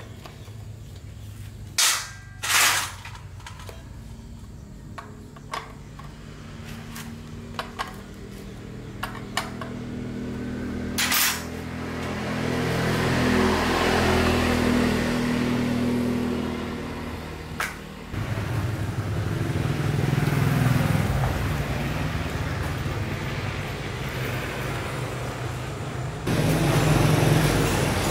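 Small petrol generator engine running steadily, with sharp knocks and clicks over it in the first dozen seconds. The engine sound shifts abruptly about eighteen seconds in and again near the end.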